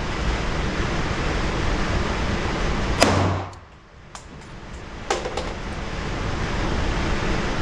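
A single gunshot about three seconds in, over a steady rushing background; right after the shot the sound drops away for about a second before the background returns. Fainter sharp cracks follow around five seconds in.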